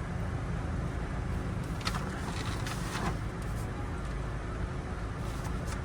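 Steady low rumble of a running vehicle, with a few faint light clicks about two to three seconds in.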